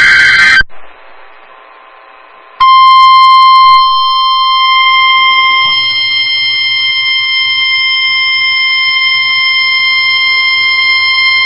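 NOAA Weather Radio emergency alert opening. It begins with the brief end of a SAME digital data burst, a loud warble of data tones, followed by about two seconds of faint radio hiss. About two and a half seconds in, the 1050 Hz warning alarm tone starts: one steady, high-pitched tone held for about nine seconds, signalling that a warning broadcast follows.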